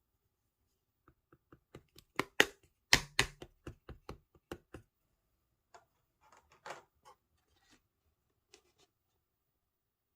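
Clear slime being squeezed and pressed by hand, making a quick run of sharp clicks and pops. They are loudest about two to three seconds in, then thin out to a few scattered pops.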